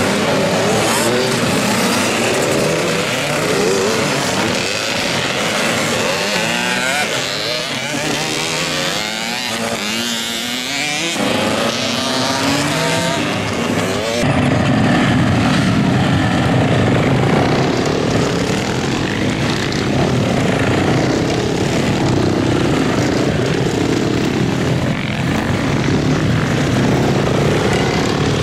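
Several small motocross bikes, youth two-strokes, revving and accelerating, with engine pitches rising and falling over one another. About halfway the sound changes abruptly to a denser, steadier drone of bikes running.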